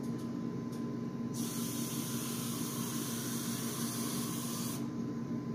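Kitchen tap running water: a steady hiss that starts about a second and a half in and stops near the end, as water is run for the bottom of the roasting pan.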